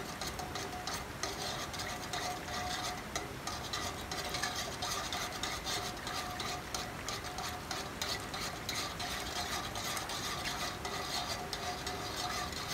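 Wire balloon whisk beating milk pudding in a pot, its wires scraping and clicking against the pot in a quick, steady stream of strokes. This is constant whisking to keep the thickening milk from forming lumps.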